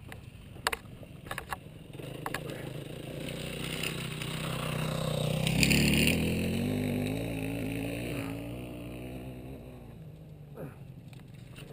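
Dirt bike engine running, its note building to a peak about six seconds in and then falling away. A few sharp clicks come in the first two seconds.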